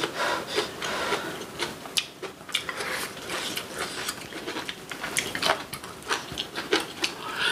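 Close-miked eating: chewing braised kimchi with wet mouth clicks and smacks, several a second in an irregular run.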